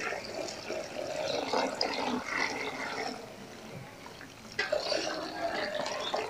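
Water poured from a jug onto a dry compressed coco peat block in a metal bowl, splashing and trickling as it soaks in. The pour weakens past the middle and picks up again, louder, about four and a half seconds in.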